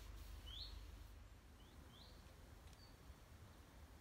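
A small bird calling faintly: a few short, high chirps, each rising quickly in pitch, spaced roughly a second apart, over a faint low background rumble.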